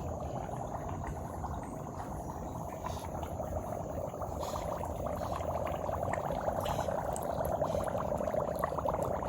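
Floodwater making a steady bubbling, crackling noise that slowly grows louder toward the end.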